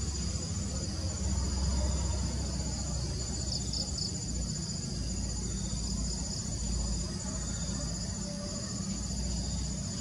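Insects chirping in a steady, high-pitched chorus, with a short louder chirp a little before the middle, over a steady low rumble.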